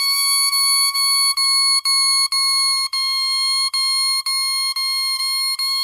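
Bare oboe reed, blown hands-free and tongued hard, crowing a steady high C, with short tongued breaks about twice a second. This is the 'hug test' done right: the embouchure holds the reed firmly, so it doesn't bounce and the pitch stays steady.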